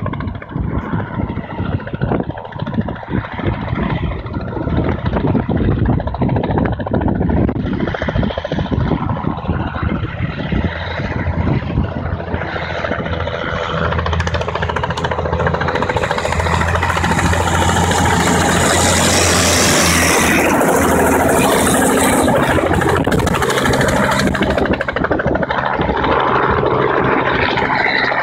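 A BVP infantry fighting vehicle's engine and a low-flying light helicopter's rotor and engine, both coming closer. The noise builds to a steady, loud drone about halfway through and stays loud as the helicopter passes close overhead.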